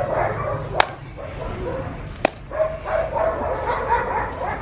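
Dogs barking and whining in short, pitched calls, with two sharp clicks about one second and two seconds in.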